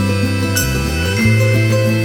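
Background music: instrumental, with held bass notes and higher melodic tones that change note every half second or so.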